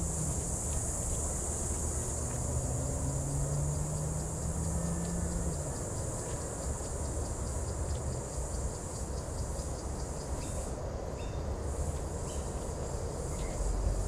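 Insects keep up a steady high-pitched drone, with a fast run of faint ticks in the middle. Underneath is a low rumble with a low hum that rises a little and stops about halfway through.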